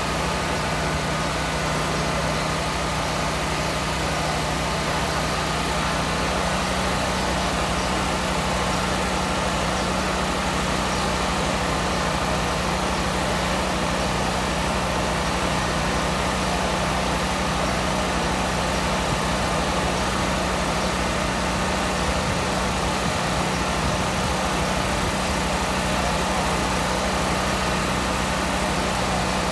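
A steady, unchanging mechanical drone with a low hum, like an engine or motor running at idle.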